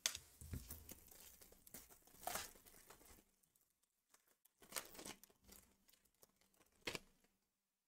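Foil wrapper of a Topps trading-card pack being torn open and crinkled in the hands: a few short, faint rips and crinkles.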